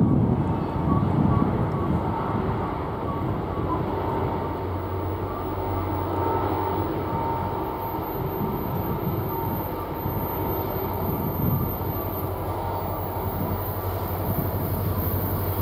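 Norfolk Southern freight train rolling through a sharp curve: a steady rumble of wheels and cars with diesel engine drone underneath. Thin, high-pitched wheel squeal on the curved rail comes in from about halfway through.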